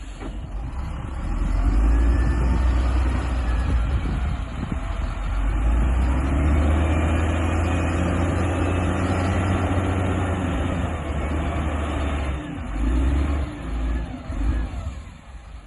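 Heavy vehicle's diesel engine running hard under load, with a deep steady rumble that swells about a second and a half in and eases off briefly twice near the end.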